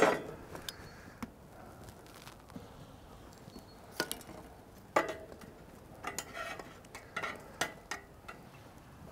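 Scattered light metallic clinks and knocks from handling coals and metal tools around a cast-iron Dutch oven, with a sharp knock at the start and a cluster of clicks about six to eight seconds in.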